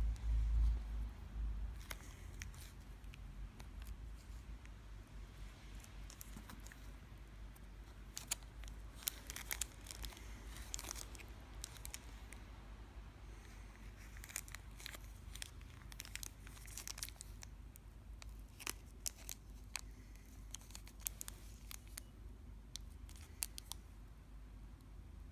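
Thin plastic wrapping crinkling and crackling in irregular sharp bursts as a wrapped Zippo lighter is turned over in the hands, busiest around the middle.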